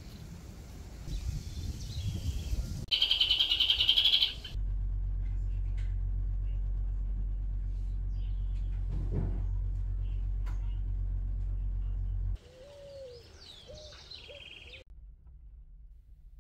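A short burst of rapid, high bird chirping, followed by a steady low rumble and, near the end, a few faint gliding calls.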